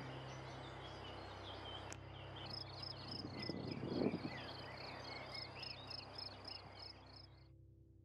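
Outdoor birdsong ambience: scattered chirps over a steady low hum. From a couple of seconds in, a high, rapid chirp repeats about four times a second. About halfway through there is a brief louder rush of noise, and the sound fades out shortly before the end.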